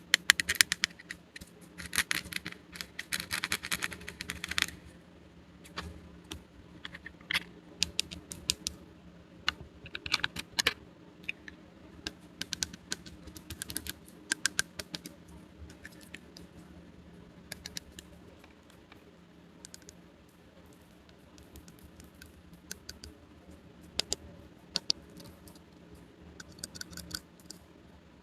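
Small plastic toy pieces being handled and set down, giving crisp clicks and taps. A dense crackling run in the first four or five seconds, then scattered single clicks.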